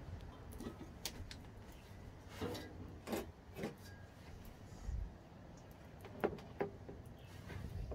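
Scattered light clicks and knocks of a cordless drill and a steel tube frame being handled and positioned, over a low steady rumble; the drill motor is not running.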